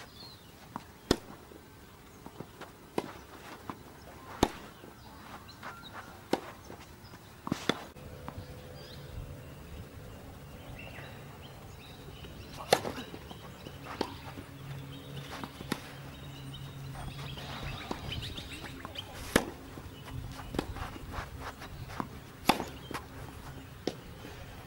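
Tennis racket strung with Babolat RPM Hurricane polyester string striking the ball, sharp pops every few seconds with fainter ball bounces between, including a serve. A low steady hum sits underneath from about eight seconds in to about eighteen.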